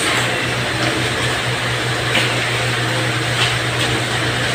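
Steady low hum and hiss of room noise, with a few faint rustles of paper sheets as test papers are collected and handled.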